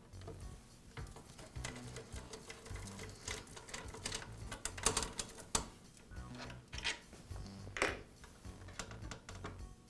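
A long-shaft screwdriver backing out the screws that hold a Makita table saw's motor housing to its gearbox, giving irregular metal clicks and scrapes, the sharpest about five and eight seconds in. Background music plays underneath.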